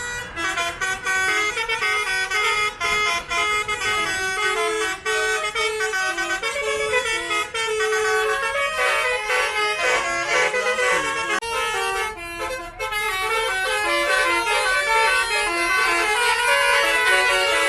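Basuri telolet bus horn, a multi-trumpet musical air horn, playing fast melodies of stepped notes one after another with hardly a pause. There is a short drop near the end of the middle stretch before the tunes carry on.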